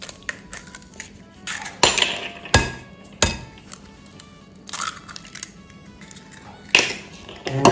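Two eggs being cracked on the rim of a glass bowl: a string of sharp taps and shell cracks, a few of them loud.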